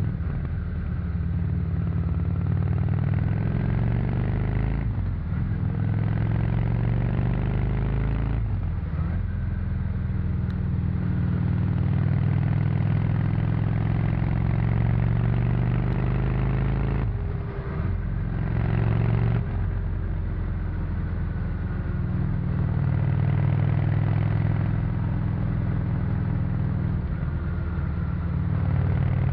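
Honda VT 600 C Shadow's liquid-cooled V-twin running through its stock exhaust on the move, rising and falling in pitch with speed. A few brief breaks in the sound, about 5, 8 and 17 seconds in, fit gear changes.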